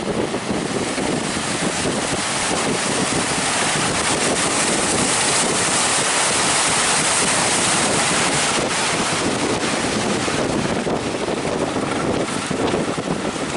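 Ocean surf breaking, with wind buffeting the microphone: a steady loud rush that swells in the middle.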